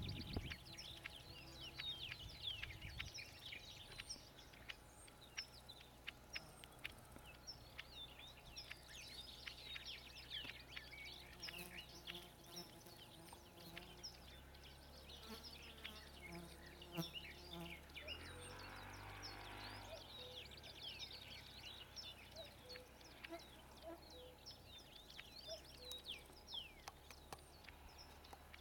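Bluethroat singing faintly: a long, unbroken run of quick, varied high chirps and clicks. A brief rush of noise passes about two-thirds of the way through.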